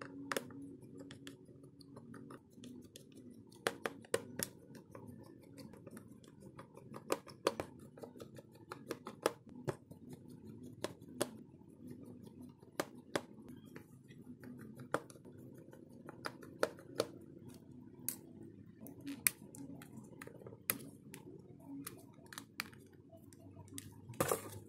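Small precision screwdriver clicking and scraping on the screws and plastic midframe of a Xiaomi Redmi 4A as it is unscrewed: irregular sharp little ticks, a couple a second, over a faint steady low background noise. Near the end there is a quick cluster of louder clicks as the frame is handled.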